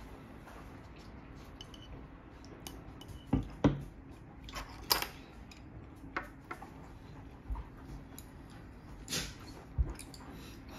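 Metal chopsticks and tableware clinking and knocking against ceramic dishes during a meal: a scattering of sharp taps, the loudest two close together about three and a half seconds in.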